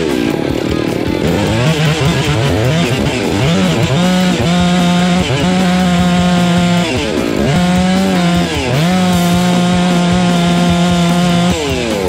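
Two-stroke chainsaw running at high revs, its pitch dropping and climbing back up several times as the throttle is let off and opened again.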